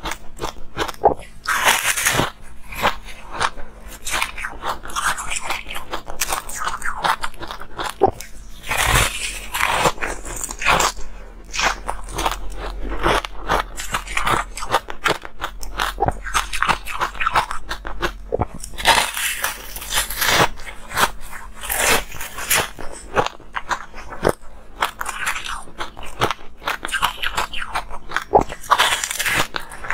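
Close-up crunching of a large slab of bubbly, rainbow-coloured ice being bitten and chewed, with dense crackling snaps that keep going throughout and a few louder bites.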